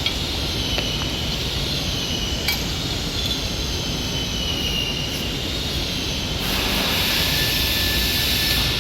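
Steady machine noise with a faint wavering high whine, joined about six and a half seconds in by a louder hiss.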